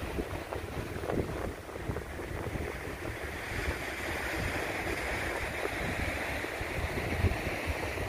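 Strong wind blowing against the microphone, with an uneven low rumble of gusts, over the steady wash of ocean surf.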